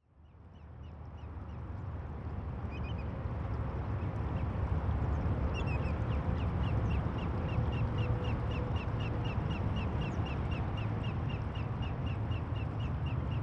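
Outdoor ambience fading in: a steady low rumble and hiss with a bird calling in short chirps, at first now and then and from about five seconds in as a quick regular run of about four a second.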